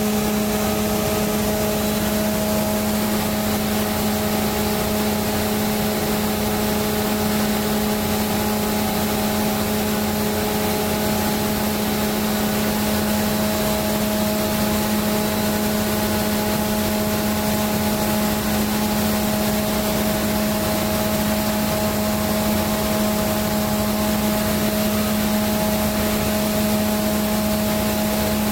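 Ship's emergency diesel generator running steadily off load after a simulated blackout, before it is switched onto the emergency switchboard: a constant machinery drone with an even pitched hum.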